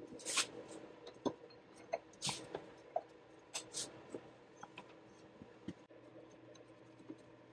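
Light clicks and taps of metal parts being handled as a ribbed drive pulley is fitted onto a power steering pump's shaft: a few sharp clicks and scattered lighter ticks over a faint steady hum.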